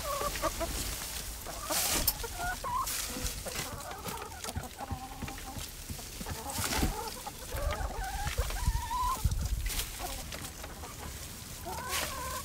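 A flock of hens clucking continually in short, overlapping calls, with a few sharp scrapes and thuds of a garden fork digging into compost.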